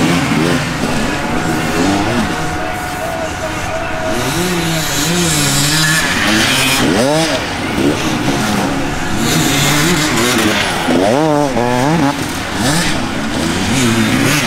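Enduro dirt bike engines revving hard, their pitch rising and falling with repeated bursts of throttle, with sharp climbing revs about seven seconds in and again around eleven seconds.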